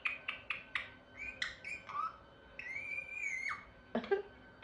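A pet parrot vocalising: a quick run of short clicking notes, then a few short chirps and one long arched whistle lasting about a second.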